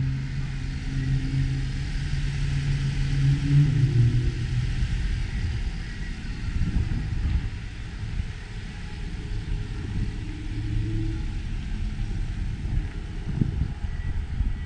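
Low vehicle engine rumble mixed with wind buffeting on the microphone; the engine hum shifts in pitch a few seconds in and again around the middle.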